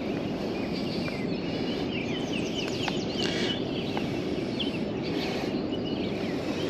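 Steady rush of flowing river water, with birds chirping over it in short, quick calls, mostly in the first half.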